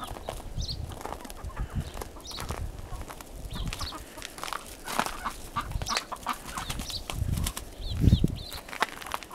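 Chickens clucking, with short high calls repeating about once a second and some wing flapping. Irregular low thumps run underneath, the loudest about eight seconds in.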